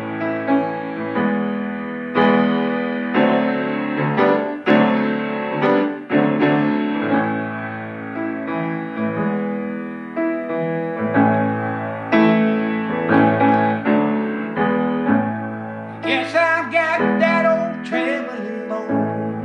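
Piano or electric keyboard playing an instrumental passage of sustained chords over a steady bass line, with repeated note attacks. A wavering higher melody line comes in briefly near the end.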